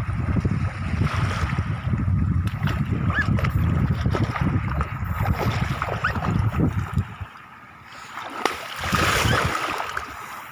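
Wind buffeting the microphone over small waves lapping at the shore, then a short splash of shallow water about nine seconds in.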